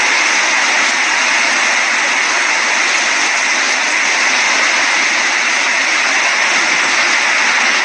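Heavy hurricane rain pouring steadily: a loud, even rushing hiss with no breaks.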